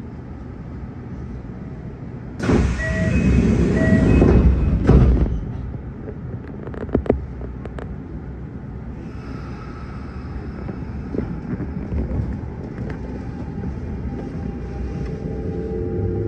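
Inside a Kintetsu 1252 series electric train at a station: a loud rush of noise with two short beeps about three seconds in as the doors close, then clunks and a quieter steady rumble. Near the end a rising whine starts from the VVVF inverter-driven traction motors as the train begins to pull away.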